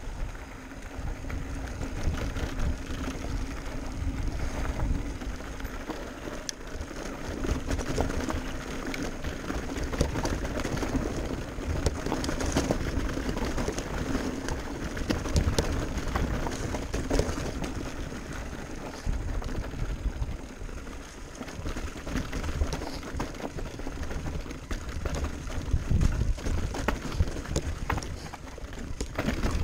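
Commencal Meta Power electric mountain bike riding a rough dirt trail: tyres rumbling over dirt and rocks, with scattered clicks and rattles from the bike and wind buffeting the microphone.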